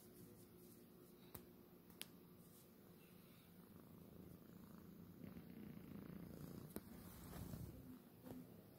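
A domestic cat purring faintly, the purr swelling louder for a few seconds in the second half. A few light clicks are also heard.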